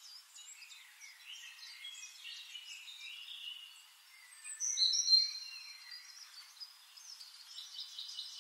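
Chorus of tropical forest birds: many overlapping chirps and high whistled notes, with a louder run of whistles about five seconds in.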